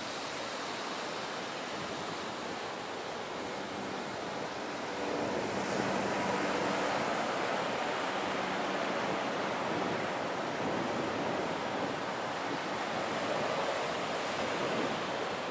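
Ocean surf washing on a beach, a steady rushing noise that grows a little louder about five seconds in, with wind on the microphone.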